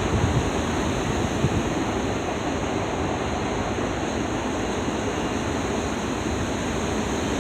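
Freight train rolling past steadily: the wheels and cars make an even rushing rumble with no distinct clanks.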